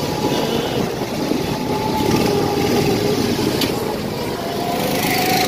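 Go-kart engine running steadily as the kart drives around the track, a continuous drone with its pitch drifting slightly.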